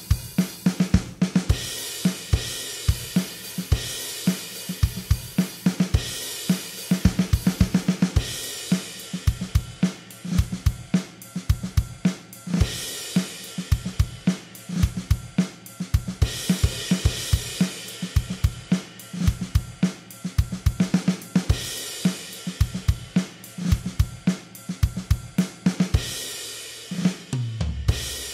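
Programmed GarageBand "SoCal" drum kit playing a steady rock beat of kick, snare, hi-hat and cymbals. Near the end a falling run of low drum hits leads into a final crash-and-kick hit that rings out.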